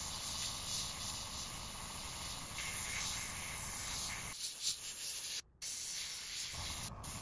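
Gravity-feed airbrush spraying paint, a steady hiss of air, with a very short break about five and a half seconds in.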